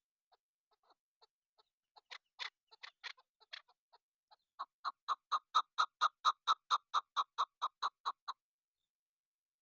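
Chukar partridge calling: soft scattered clucks build into louder irregular notes, then about halfway through a fast, even run of loud clucks, about four or five a second, that stops abruptly near the end.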